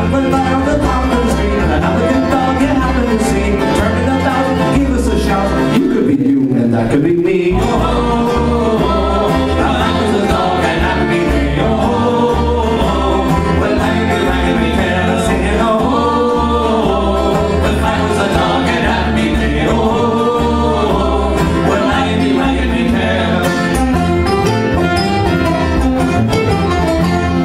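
Live acoustic folk band playing: banjo, fiddle, acoustic guitar and upright double bass together, with singing over the top.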